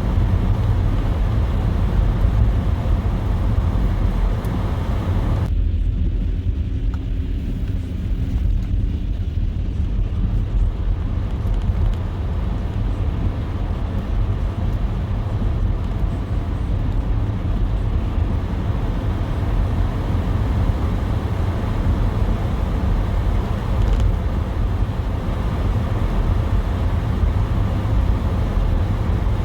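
Car driving through snow: a steady low rumble of road and engine noise. The higher hiss drops away suddenly about five seconds in and builds back over the following several seconds.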